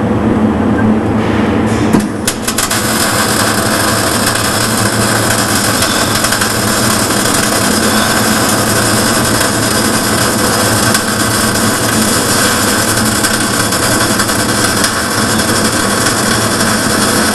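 Electric welding arc struck about two seconds in, then crackling and hissing steadily, over a low steady hum.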